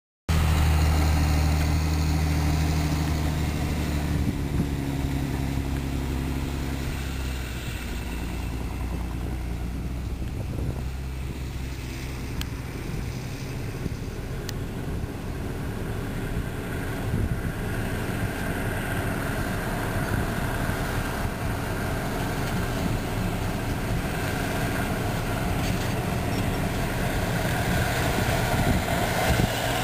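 Heavy farm machinery running steadily under a diesel engine, with a deep, even drone. It cuts in suddenly at the start. Partway through, the low hum weakens and a rougher, even mechanical noise takes over.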